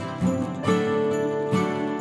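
Background music: an instrumental track with a new note about every half second.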